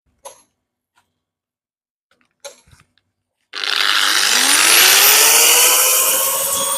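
A few light clicks, then an electric power drill starts about three and a half seconds in: its motor whine rises quickly in pitch as it spins up and then runs steadily and loudly.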